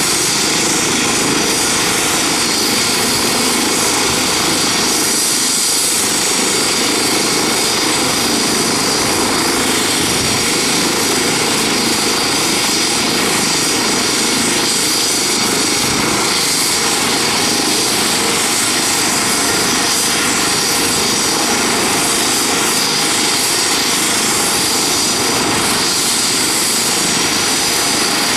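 Eurocopter EC135 helicopter idling on the ground with its main rotor turning: a steady turbine and rotor noise with a constant high-pitched whine, unchanging, before lift-off.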